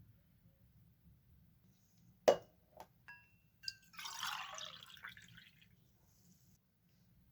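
A sharp knock and a few glassy clinks with brief ringing, then liquid poured for about a second and a half.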